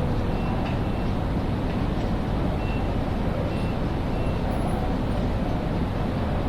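Steady ambience of a large railway station hall: a continuous low rumble and hum with no pauses, with a few faint, short high beeps of the same pitch now and then.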